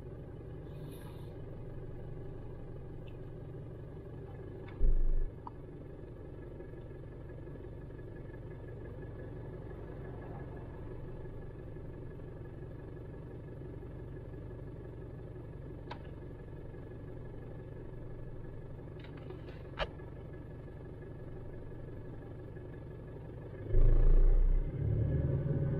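Mitsubishi Triton's 4M41 3.2-litre diesel idling steadily at about 700 rpm, heard inside the cab while the engine ECU runs small injection quantity learning. Near the end the engine note steps up sharply and stays up as the ECU raises engine speed to learn injection at a higher rpm. A brief low thump about five seconds in.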